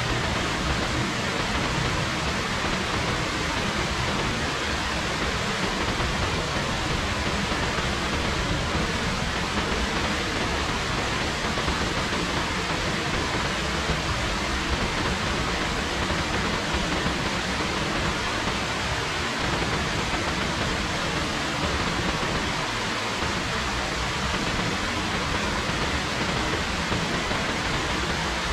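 Rain falling steadily: an even, unbroken hiss with no distinct drops standing out.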